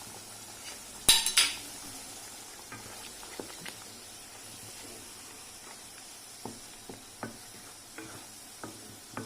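A metal spoon clatters loudly against an iron kadai about a second in, then taps and scrapes the pan now and then while stirring the boiling pepper curry, over a steady low hiss of the curry cooking.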